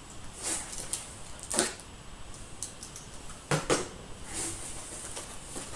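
Cardboard packaging being handled: a string of short rustles, scrapes and knocks as things are moved about inside a large bike box, the loudest two close together a little past the middle.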